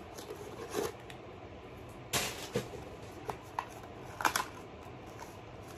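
Small kraft-paper package torn open and handled: scattered crinkles and sharp crackles of paper packaging, the loudest about two seconds in and again just after four seconds.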